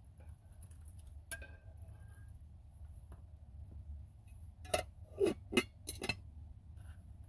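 Tableware being handled: a light click about a second in, then a quick run of four or five louder clinks and knocks near the end, over a low steady hum.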